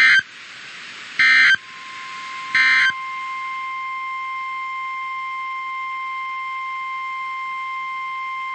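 Emergency Alert System SAME header: three short, loud bursts of digital data tones about 1.3 s apart, followed by a long, steady, single-pitched weather-radio alert tone, which marks the start of a new warning broadcast.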